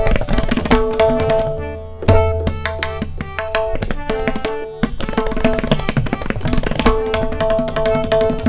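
Tabla duet: two tabla sets played in fast, dense strokes over a harmonium holding and repeating the lehra melody in steady tones. Around two seconds in a deep bass stroke on the bayan rings on for about a second.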